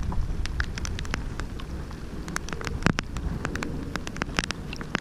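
Raindrops hitting the kayak and the camera as sharp, irregular ticks, over a low rumble of wind on the microphone.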